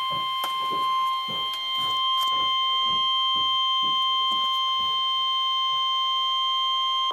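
NOAA Weather Radio 1050 Hz warning alarm tone: one steady high-pitched tone that cuts off suddenly near the end, with faint crackles of receiver static underneath. The tone signals that an emergency warning broadcast, a severe thunderstorm warning, is about to follow.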